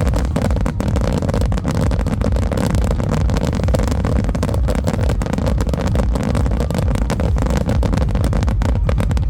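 Dense fireworks barrage: a continuous low rumble of booming shells overlaid with rapid, closely packed crackling.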